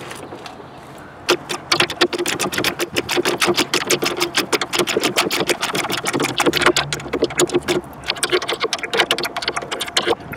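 Socket ratchet clicking rapidly as it turns the nut on a suspension ball joint. Two runs of fast, even clicks with a short break about eight seconds in.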